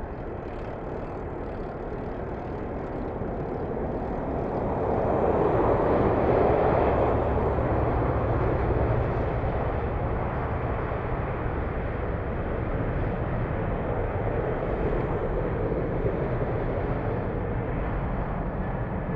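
Roar of an Airbus A380's four Rolls-Royce Trent 900 engines on final approach, a wide rushing noise that swells to its loudest about six seconds in and then holds steady.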